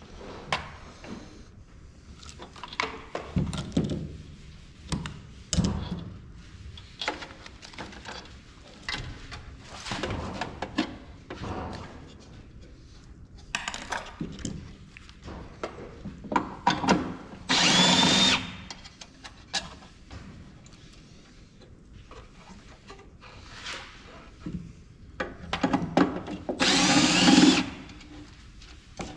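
Electric drill or screwdriver runs twice in short bursts of about a second, removing fasteners from a thermal printer's frame. Between the bursts, tools and loose metal and plastic parts click and clatter.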